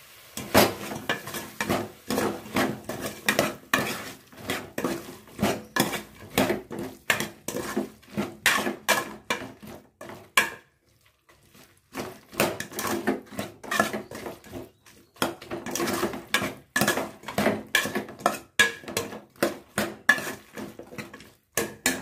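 Metal ladle scraping and clinking against an aluminium pot as chopped brinjal and drumstick are stirred into fried tomato and onion, with a pause of about two seconds halfway through.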